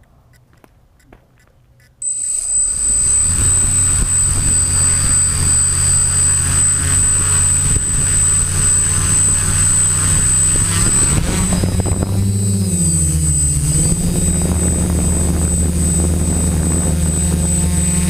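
Quadcopter's motors and propellers spinning up abruptly about two seconds in, then running with a steady drone and a high whine, heard from a camera mounted on the craft. Near the middle the pitch rises, dips and rises again as it throttles up and lifts off, then holds steady in flight.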